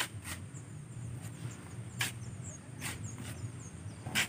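Steel shovels scraping into a pile of wet sand and pitching it into a truck bed by hand: four or five separate scrapes about a second apart, the loudest near the end.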